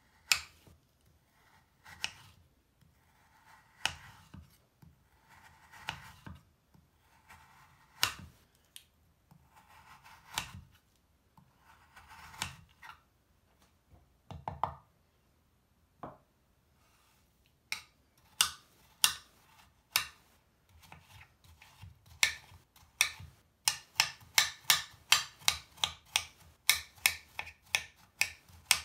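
Knife slicing through a crumbly bubble bar, one slow slice about every two seconds, each a gritty crunch ending in a tap of the blade on the cutting board. From about two-thirds of the way through it turns to quick chopping, the blade knocking the board about three times a second.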